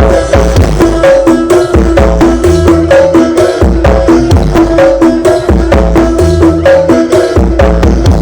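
Loud dance music played through a giant truck-mounted 'sound horeg' sound system: a fast hand-drum beat over heavy bass, with a repeating melody.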